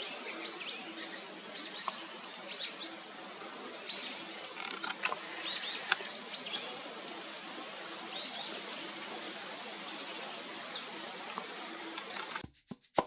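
Small forest birds calling, many short high calls scattered over a steady background hiss, with a quick run of about a dozen high repeated notes in the middle. Percussive music with wood-block clicks cuts in near the end.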